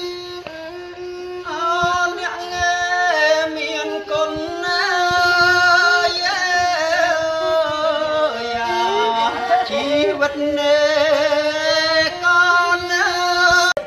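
Bowed two-string fiddle playing a slow melody of long, sliding notes, with singing over it.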